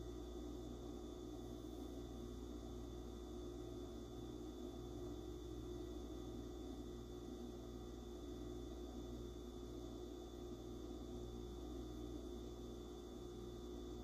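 Faint steady low hum with a soft hiss and a few thin steady tones: room tone.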